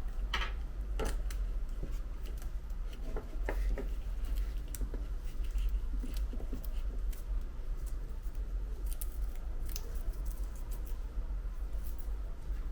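Small hand tool scraping and picking old adhesive off an iPhone's metal frame: irregular light scratches and clicks, over a steady low hum.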